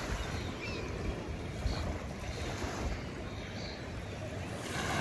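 Wind buffeting the microphone: a steady rushing noise with low gusty rumbles.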